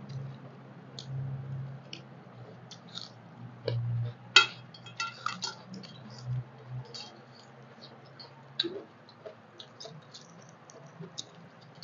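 Eating by hand: fingers mixing rice and dal on steel plates and mouths chewing, with scattered small clicks and clinks against the metal plates, the sharpest about four seconds in. A low hum underneath stops about three-quarters of the way through.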